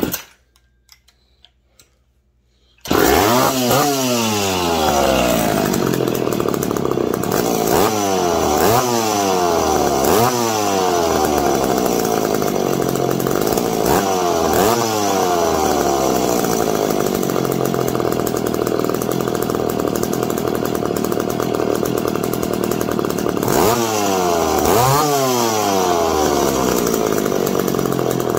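McCulloch PM 700 two-stroke chainsaw firing up about three seconds in and running, revved up and back down several times with steady high running in between.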